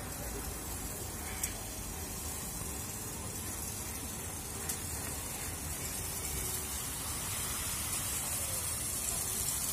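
Water-curtain fountain: a sheet of drops falling from an overhead canopy and pattering down in a steady hiss, growing louder near the end.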